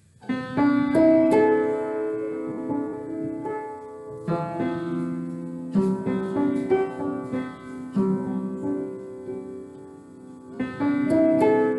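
Upright piano played slowly: a simple melody of struck notes over held lower notes, in short phrases with brief pauses between them.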